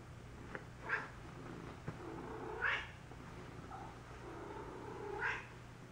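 A cat meowing faintly, three short calls a couple of seconds apart, with a couple of small clicks.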